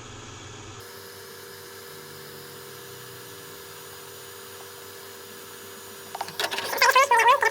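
Heat gun running with a steady fan hiss and a faint whine while it warms the screen adhesive. About six seconds in, loud squeaky cries with wavering pitch come in over it.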